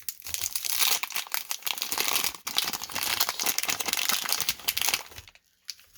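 Wax-paper baseball card pack wrapper crinkling and crumpling as it is torn open and handled: a dense crackle that stops about five seconds in.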